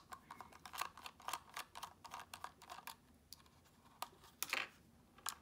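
Faint, irregular small clicks and ticks of a precision screwdriver turning out the screws that hold the top on a small electronics case. There is a quick run of clicks, a pause about three seconds in, then a few more.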